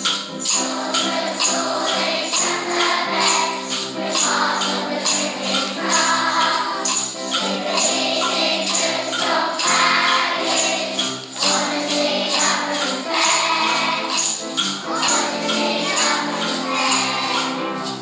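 Upbeat background music with a steady, quick high percussion beat and singing voices.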